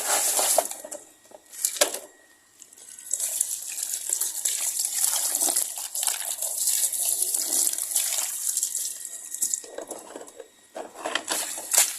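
Water running and splashing as a sandy toy excavator is washed off, coming in several runs with short breaks, the longest lasting about six seconds in the middle.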